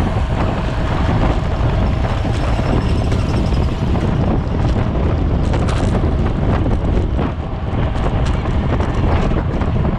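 Wind buffeting a bicycle-mounted camera's microphone at race speed: a loud, steady, low rushing rumble, with a few faint clicks.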